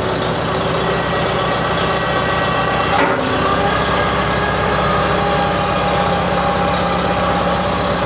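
1953 Farmall Super A's four-cylinder gasoline engine idling steadily shortly after a cold start, with one brief knock about three seconds in.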